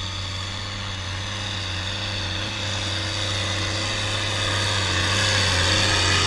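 Engine of heavy farm machinery running with a steady low hum, slowly growing louder.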